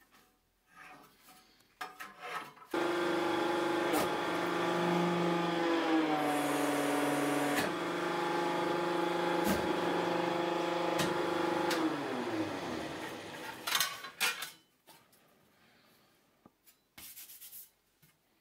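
A powered press's electric pump motor starts about three seconds in and runs with a steady hum for about ten seconds, pressing the sheet metal into the die. Its pitch dips briefly partway through, then it winds down with a falling pitch. A few clicks and metal handling sounds come near the end.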